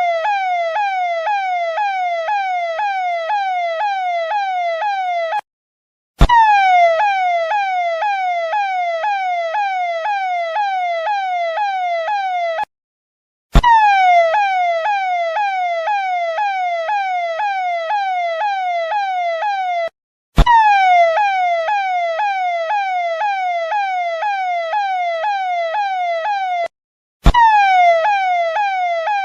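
Indian police siren, electronic: a tone that drops in pitch and snaps back up about one and a half times a second. The sound breaks off briefly every six or seven seconds, and each restart begins with a click and one longer fall.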